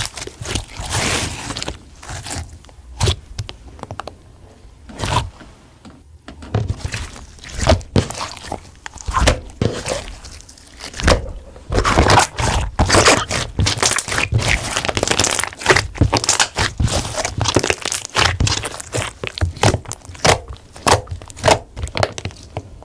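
Slime being squeezed, stretched and folded by hand, giving an irregular run of sticky clicks, pops and crackles.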